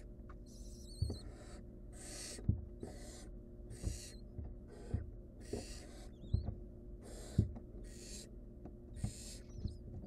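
Barn owls in a wooden nest box hissing: a run of short rasping hisses, about one a second, typical of nestlings' begging calls. Dull knocks from the birds shifting about on the box floor come between them and are the loudest sounds.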